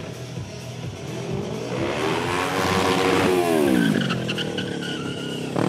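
Stunt motorcycle engine revving up and falling back over about three seconds, with a rush of tyre noise at the peak, over background music; a sharp knock comes near the end.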